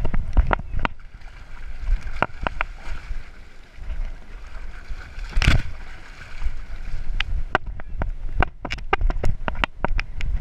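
Handling noise from an action camera strapped to a moving dog. There is a low rumble and buffeting with many sharp clicks and knocks, and one louder knock about halfway through.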